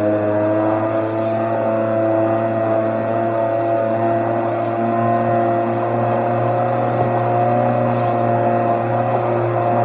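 Vacuum cleaner running steadily: an even motor drone with a thin high whine over it.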